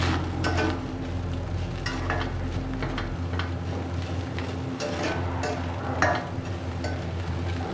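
Minced meat, chopped shallots and chilli frying in a stainless steel pot, sizzling while a slotted spatula stirs and scrapes them around the pot in irregular strokes.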